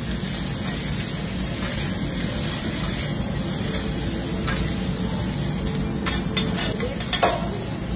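Food sizzling steadily on a hot teppanyaki steel griddle, with a few sharp metal clinks of a cleaver and spatula against the griddle near the end, the loudest about seven seconds in.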